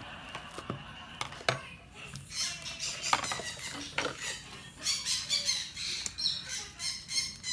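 A pet bird squawking and chattering in rapid, high, repeated calls from about two seconds in, over a few sharp squishy clicks of foam-ball slime being kneaded by hand.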